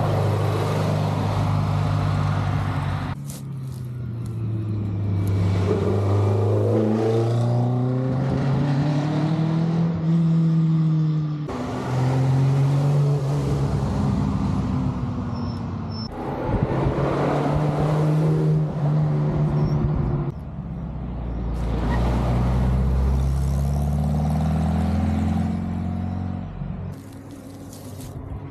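Classic sports car engines accelerating hard and changing gear, pitch climbing and dropping with each shift, as several cars pass one after another with abrupt cuts between them.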